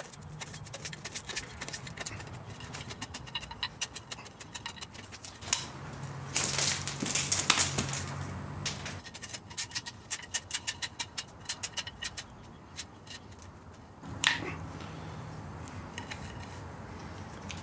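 Old grip tape being peeled and torn off a baseball bat handle: a long run of quick crackles and ticks as the adhesive lets go, with a few longer ripping stretches.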